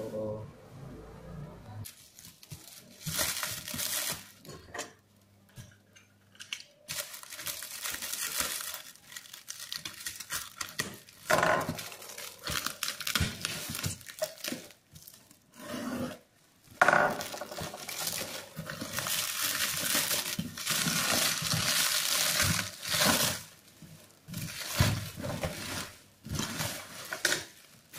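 Clear plastic stretch wrap being pulled, torn and crinkled off a cardboard box, in irregular bursts of rustling with short pauses between them.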